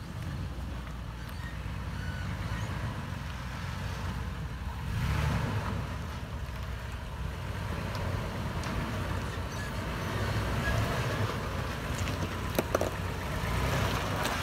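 Fifth-generation Toyota 4Runner's V6 engine running at low revs as it crawls over rock, swelling twice as the truck pushes up the ledge. A few sharp clicks come near the end.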